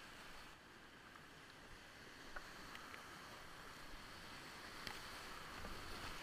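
Steady rush of whitewater as a kayak runs a big-water rapid, with a few short sharp ticks about two and five seconds in.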